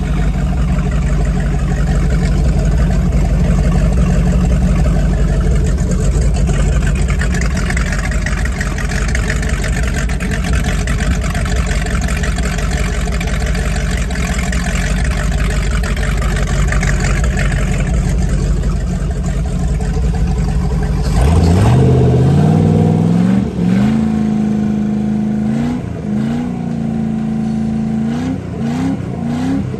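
Freshly overhauled 454 (7.4 L) big-block V8 marine engine running on a test stand, steady at first. About two-thirds of the way through it is revved up, then blipped up and down several times.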